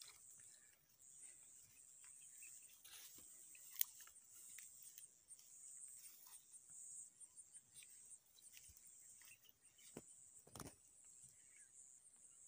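Faint, steady high-pitched chirring of insects, with a single sharp click about four seconds in and a couple of dull knocks near the end.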